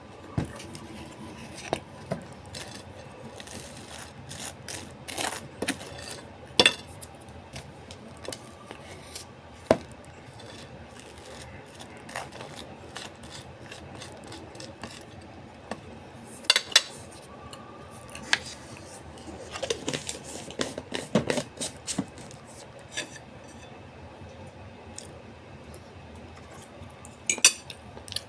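Cutlery clinking and scraping against a bowl or plate during a meal, in scattered, irregular taps, with a few louder clinks around a quarter of the way in, mid-way, and near the end.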